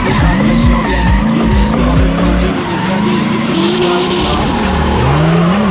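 Drift car engine revving hard, its pitch swinging up and down several times, with tyres skidding and squealing as the car slides.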